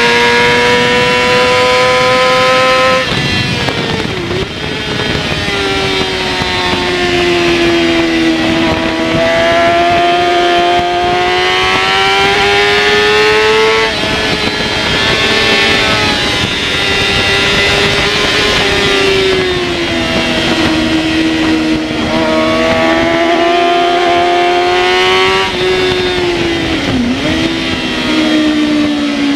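Yamaha R6 inline-four race engine at high revs, heard onboard while racing. Its pitch holds high, drops sharply about three seconds in on braking and downshifting, then climbs again through the gears, with further dips for the corners later on.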